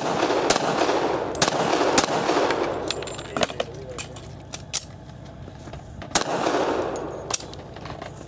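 Pistol shots from a Springfield XDm 5.25 in .45 ACP fired in a rapid string: several shots in the first two seconds, a lull with a few fainter cracks, then more shots from about six seconds in.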